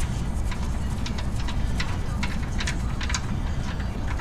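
Irregular light clicks, two or three a second, as the oil drain plug is worked loose by hand with a socket and ratchet on it, over a steady low rumble.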